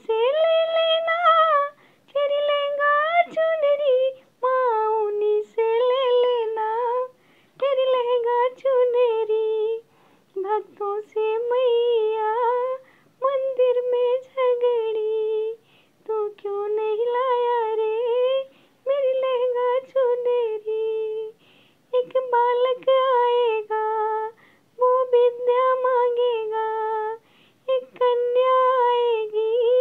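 A woman singing a bhajan (Hindu devotional song) solo and unaccompanied, in short phrases of about two seconds with brief breath pauses between them.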